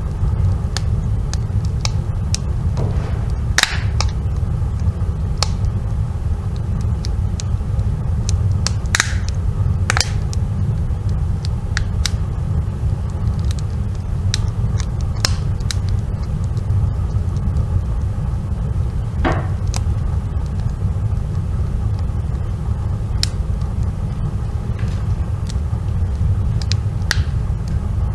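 Wood fire burning in a fireplace: a steady low rumble with sharp crackles and pops at irregular intervals.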